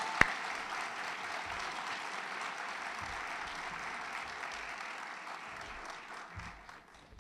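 Audience applauding, with a loud single clap close by just after the start. The clapping dies away gradually toward the end.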